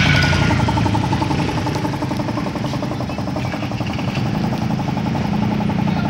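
Small piston air compressor running steadily, its motor and pump making a fast, even chugging.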